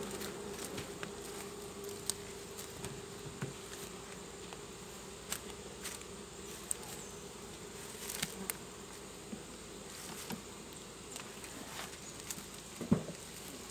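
Humming of many western honeybees (Apis mellifera) around an opened hive, a steady drone that grows fainter in the second half. A few light knocks and clicks are scattered through it.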